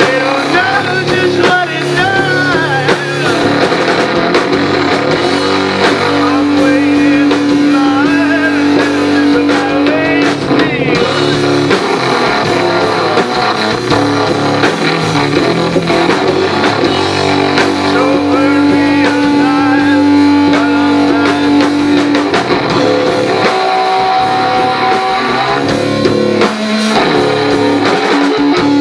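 Live rock band playing an instrumental passage: an electric guitar lead with bending notes over bass and drums.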